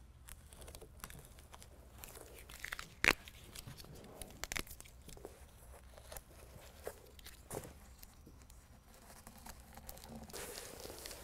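Adhesive-backed hook-and-loop strips being handled and pressed onto the foam back of a carpet tailgate liner: faint crinkling and scattered light clicks, with one sharper click about three seconds in.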